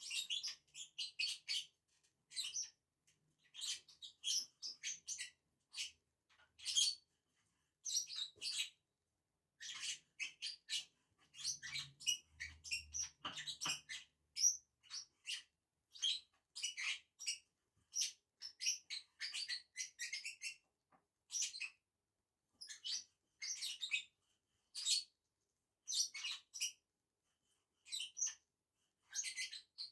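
Lovebirds (Agapornis) chirping in quick clusters of short, high twitters, with brief pauses between the clusters.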